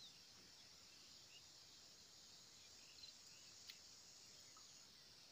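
Near silence: a faint steady high hiss with a few small, faint clicks, one a little after the middle.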